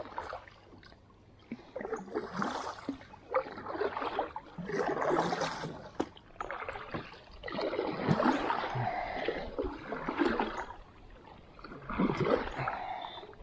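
Double-bladed kayak paddle strokes: the blades dipping into and pulling through river water, with splashing and dripping in irregular surges every couple of seconds.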